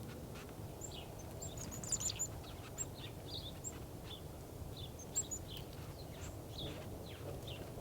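Several small birds chirping in short, scattered high notes over a steady low background rumble.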